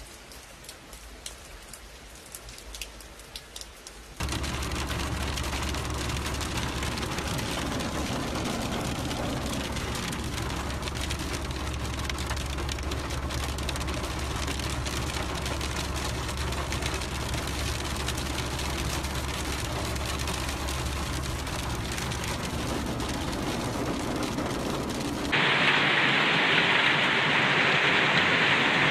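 Heavy rain pouring down, heard in three stretches that switch abruptly from one to the next. The first is quieter, with scattered ticks of drops, and the last is the loudest.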